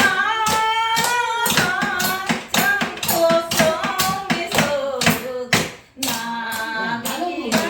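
A voice singing an old Korean trot (ppongjjak) melody with a wavering, bending pitch, over tambourine strokes and hand claps keeping a steady beat.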